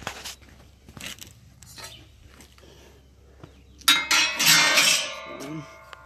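Steel parts of a portable electric concrete mixer clanking together about four seconds in, a loud metallic clatter that rings on for about a second, after a few faint clicks and rustles.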